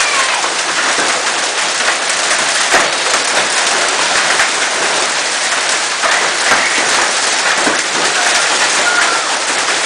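Hail pelting down hard: a dense, steady clatter of countless small impacts, with sharper individual hits standing out throughout.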